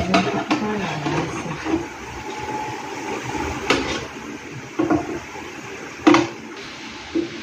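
A metal ladle knocking and scraping against the inside of a large metal stockpot while broth is served onto a plate: a few sharp clinks, the loudest about four and six seconds in.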